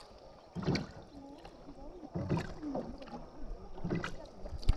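Rowboat being rowed on calm water: the oars dip and pull through the water in a steady rhythm, about one stroke every second and a half.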